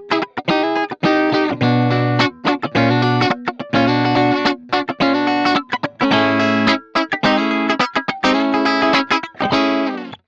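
Soloking MS-1 Custom 22 HSS electric guitar played through a Hotone Ampero II multi-effects unit: rhythmic chords broken by short gaps, ending abruptly near the end.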